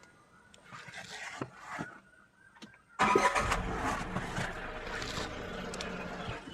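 Tata Punch three-cylinder engine, set to CNG mode, starting about 3 seconds in and settling into a steady idle; before it starts there are only a few faint clicks.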